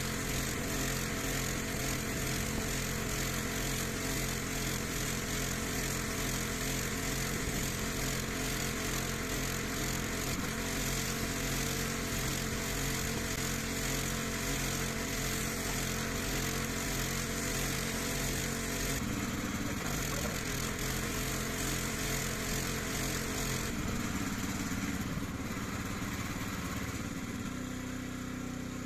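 Petrol pressure washer running steadily, its small engine droning under the hiss of the water jet. About two-thirds of the way in the hiss eases and the engine note changes, and it changes again near the end.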